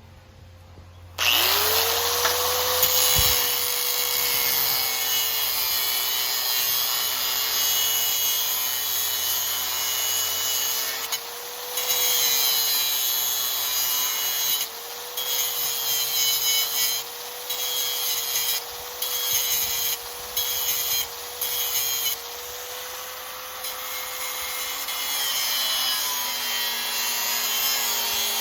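Angle grinder starting up about a second in, its whine rising and then holding steady, cutting steel with a loud harsh grinding. The mounting ears are being cut off a radiator, and the grinding dips briefly several times in the second half.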